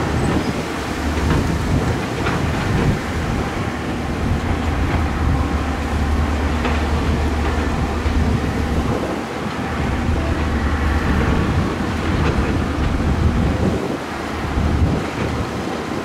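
Heavy construction machine's diesel engine running under load with a deep steady drone that eases briefly twice, and a few sharp metallic knocks from the working machinery.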